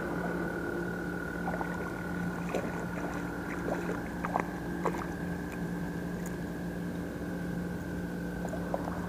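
A steady low hum with a higher steady tone above it, with scattered light clicks and ticks as a small smallmouth bass is reeled in and landed.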